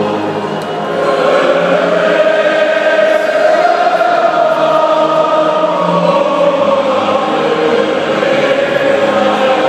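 A stadium crowd of thousands of football fans singing together, holding long notes.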